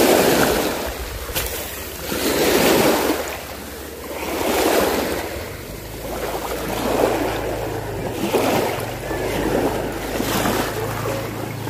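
Small sea waves washing onto the shore, swelling and fading in surges about every two seconds. A steady low hum joins about halfway through.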